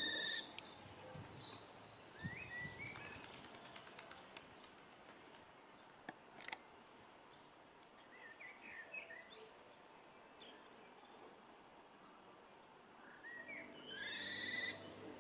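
Fledgling common kestrels calling: scattered chirps, a quick run of about seven short high notes in the first three seconds, and a loud, harsh screech about a second before the end. A faint steady background noise runs under them, with a single click about six seconds in.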